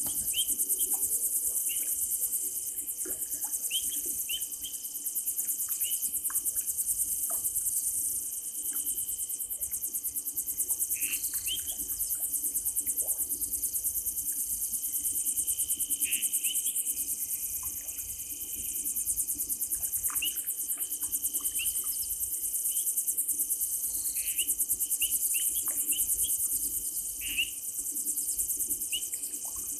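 Night chorus of crickets trilling steadily at a high pitch, with short, falling chirps scattered throughout.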